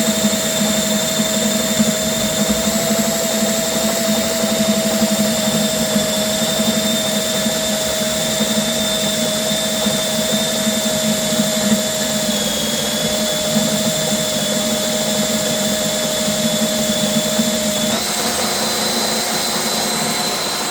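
Gold Snake GS6/30 flexible-shaft drain cleaning machine running, its motor giving a steady whine over a rough hum as the spinning shaft works in the drain pipe. The pitch sags slightly partway through, then steps up suddenly near the end as the speed changes.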